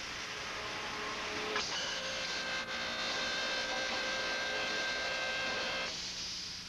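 Automatic beading machine running through its cycle on a sheet-metal cylinder, a steady mechanical whir. Its note changes with a click about one and a half seconds in, and it winds down near the end.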